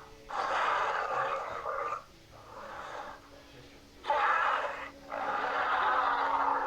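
Sound-effect vocalizations of an Allosaurus: a run of four breathy, hissing growls with short pauses between them. The second is quieter, and the third, about four seconds in, starts most sharply.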